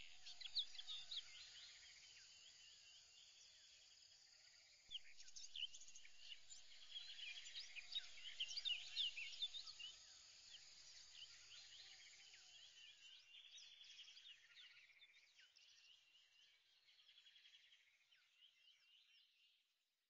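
Faint birds chirping and twittering, many short high calls overlapping, swelling about five seconds in and fading out near the end.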